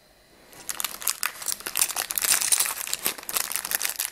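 Clear plastic packaging bag crinkling as it is handled, with the round metal cabochon pendant settings inside, starting about half a second in.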